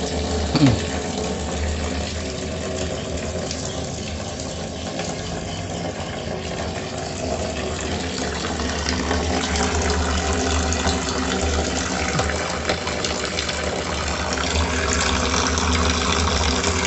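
Filtered water pouring in a strong, steady stream from the open end of a PVC pipe into a partly filled drum, splashing onto the water surface. A brief sharp sound stands out about half a second in.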